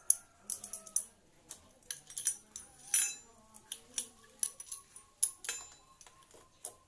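Small metal parts and bolts clinking and tapping against a Honda Supra X 125 / Karisma engine's clutch assembly during reassembly: irregular sharp clicks, the loudest about three seconds in.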